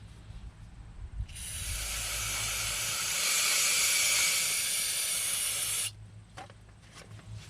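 Aerosol brake cleaner spraying on brake caliper slide pins: one steady hiss of about four and a half seconds that starts a bit over a second in and cuts off suddenly. A few light clicks follow near the end.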